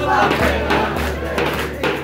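Halay folk dance music played live: a davul bass drum beating under a sustained melody line, with the crowd's voices mixed in.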